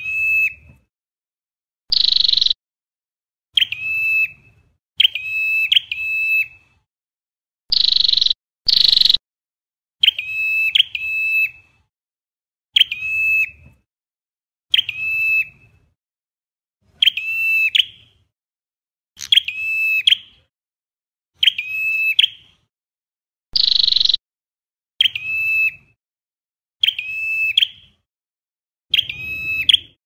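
Ashy tailorbird calling: a series of short, sharp call notes, often in pairs, about one every second or two, mixed with a few longer, higher and louder notes.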